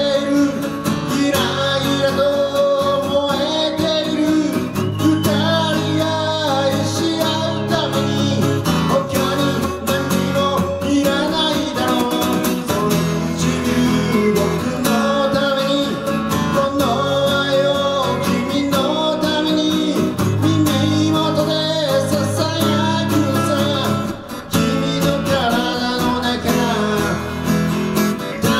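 Acoustic guitar strummed steadily in chords, accompanying a rock song, with a brief drop in level about 24 seconds in.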